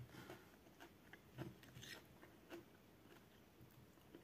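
Faint chewing and mouth sounds of someone eating rice and beans, with a string of short soft clicks and crunches in the first couple of seconds that thin out after that.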